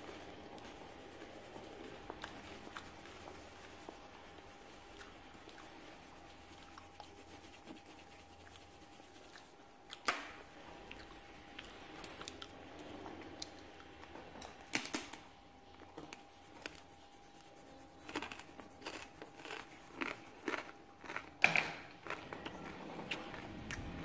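Soft scratching of a coloured pencil on paper, then a scatter of sharp clicks and taps that come thickest in the last few seconds, over a faint steady high hum.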